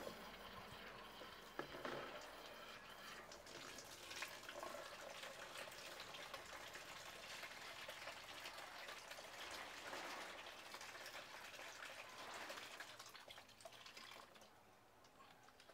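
Tap water running from a wall faucet into a plastic basin: a steady splashing stream that starts about two seconds in and dies down near the end.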